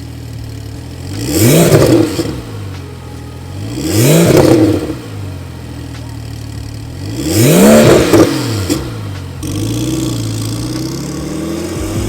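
Porsche 911 Turbo S 997.2's twin-turbo flat-six idling and blipped three times, the revs rising and falling back about two seconds in, at four seconds and near eight seconds, then settling back to a steady idle.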